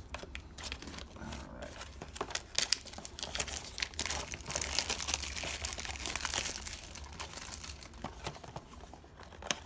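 Plastic wrapping and card packs crinkling and rustling as they are pulled out of an opened baseball-card box, the crackle busiest in the middle and thinning near the end.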